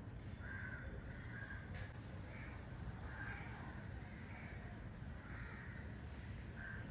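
A series of short, harsh animal calls repeating about once a second, over a steady low background rumble.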